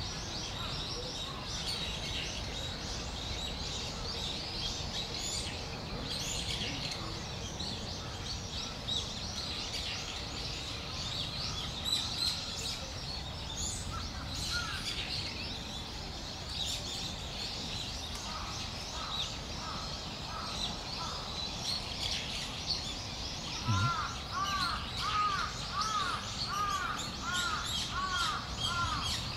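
Small birds chirping and twittering throughout. Near the end a crow caws in a steady run of about eight caws.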